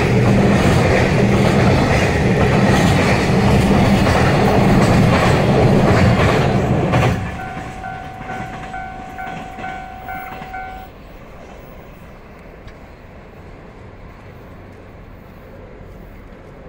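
Loaded Koki container flatcars of a freight train rolling past close by, wheels clattering over the rail joints, until the last car clears about seven seconds in and the noise drops away. A pulsing level-crossing warning bell then rings on for a few seconds before stopping, leaving only the faint sound of the train receding.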